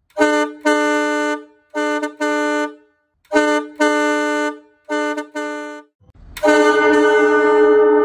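Crane truck horn sound effect honking in four pairs of blasts, each pair a short blast followed by a longer one. About six seconds in, a version of the same horn drenched in reverb begins and holds as one long, smeared tone.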